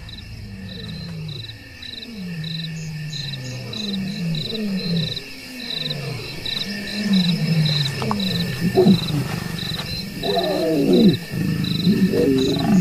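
Lions growling in repeated short, falling moans, with a louder snarl about ten seconds in. Crickets chirp in steady pulses behind them.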